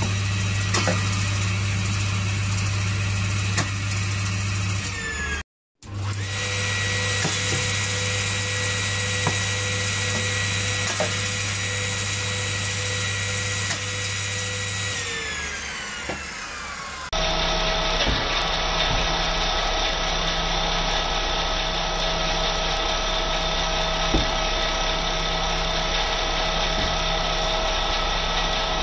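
Bench circular saw running steadily with a motor whine. Midway the whine slides down in pitch as the blade slows, then steady running picks up again, with a few light ticks here and there.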